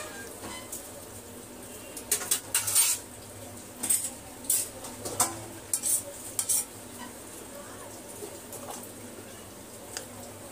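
A metal fork stirring instant noodles in a stainless steel bowl, its tines scraping and clinking against the bowl's side. The clinks come in a busy run from about two to seven seconds in, then thin out to a few faint ticks.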